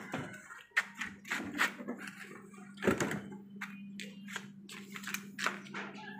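A fiberglass bumper shell being handled and set down on concrete: a string of knocks and taps, the loudest about three seconds in, over a steady low hum.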